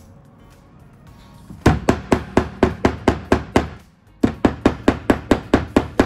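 A hammer tapping plastic wall anchors into drilled holes: two runs of about ten quick, sharp taps, roughly five a second, with a short pause between them.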